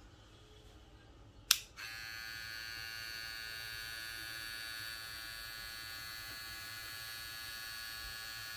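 A click about a second and a half in as a Daling electric hair clipper is switched on, then its motor and blade run with a steady whine.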